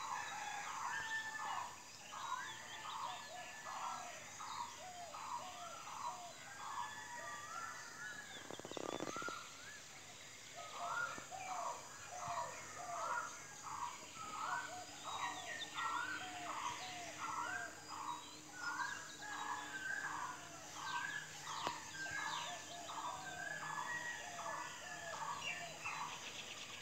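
Rhythmic chorus of animal calls: short notes repeating roughly every two-thirds of a second, with fainter notes from other callers mixed in. The calls break off for a couple of seconds, broken by a brief low noise, and then resume.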